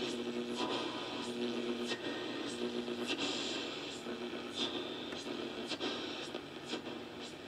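AM radio static from a 1992 GE TV/radio boombox's speaker as its tuning dial is turned: steady hiss with crackles every half second or so and a faint hum that comes and goes, the sound of weak AM reception with no station coming in clearly.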